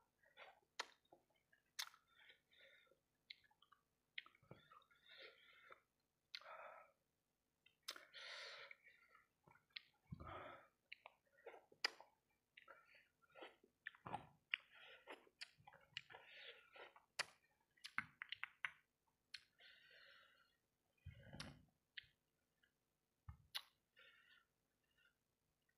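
Quiet, close-up chewing of fried rice balls in sticky sambal sauce, with irregular wet mouth clicks and smacks.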